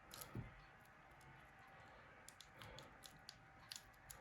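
Faint, scattered clicks of small plastic parts, the Nokia E71's card and USB port covers, being pressed into the phone's housing by hand, with a soft low thump about half a second in.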